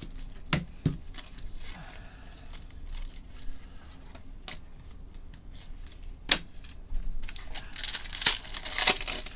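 Trading card pack wrapper being torn open and crinkled by hand, with scattered clicks and taps of handling. The crinkling is densest and loudest over the last two seconds.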